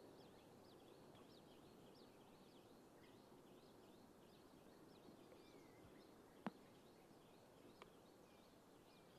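Faint birdsong, many short chirps from small birds, over a low, even outdoor hiss. A single sharp click sounds about six and a half seconds in, and a fainter one near eight seconds.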